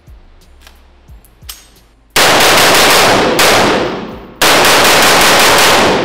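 AR-15 rifle (Radian Model 1) fired in rapid semi-automatic strings. A few faint clicks come first; about two seconds in, a fast run of shots starts, breaks off briefly, and another rapid string follows.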